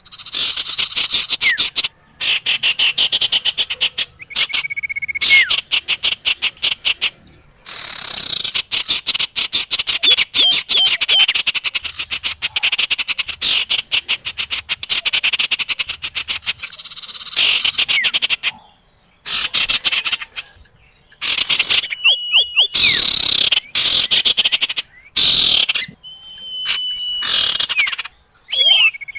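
Bird-lure recording of sirtu and common iora (cipoh) calls: long runs of very rapid, high chattering trills in stretches of several seconds with short breaks, and a few clear whistled notes, some held and some falling, mostly near the end.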